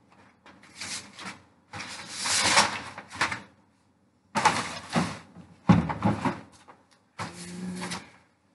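Rustling and knocking as drum heads are handled, swung aside and set down, in bursts, with a sharper knock a little under six seconds in and a brief low hum near the end.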